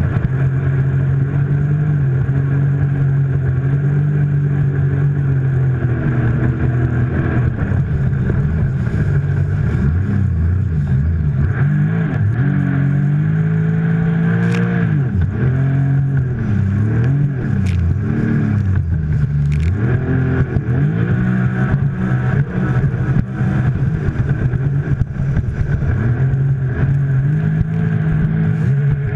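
Sea-Doo RXT jet ski engine running loudly, steady for several seconds, then revved up and down repeatedly so its pitch rises and falls, before settling back to a steady run near the end.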